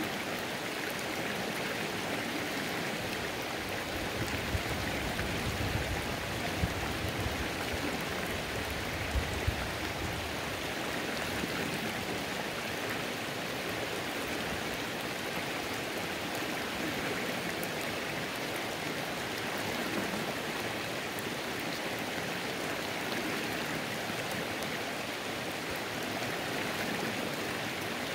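Rain falling on a creek: a steady hiss of rain mixed with running stream water. A few louder drops hit close by in the first third.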